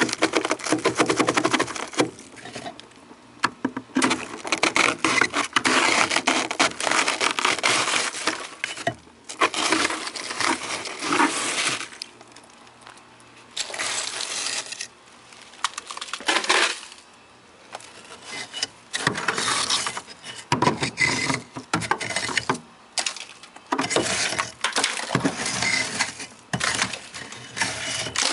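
Thick freezer frost and ice being chipped and scraped away with a hand tool: crunching, crackling scrapes in bursts of a few seconds with short pauses between.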